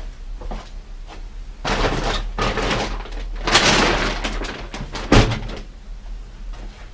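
Scraping and rustling noises, then one sharp knock about five seconds in.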